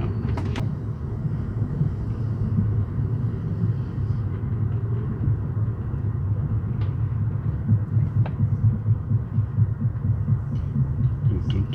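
Steady rumble of an Amtrak Empire Builder car's wheels on the rails, heard from inside the car at low speed through curves. It carries a repeating thump, growing more pronounced in the second half, which the riders put down to a flat wheel, with a few faint clicks.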